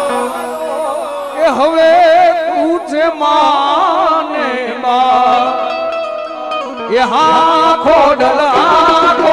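Gujarati devotional folk music: a wavering, heavily ornamented melody line over a held drone note, with the low drumming dropping out for most of the stretch and coming back near the end.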